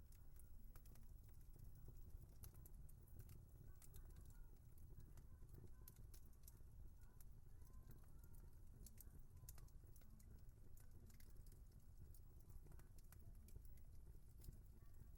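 Faint wood fire crackling: small sharp pops and snaps at an irregular pace over a soft low rumble of burning.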